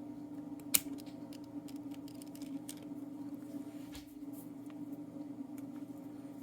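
Small metal clicks and taps from handling a padlock core while checking that its C-clip is seated, with one sharp click about a second in and another near the middle. A steady low hum runs underneath.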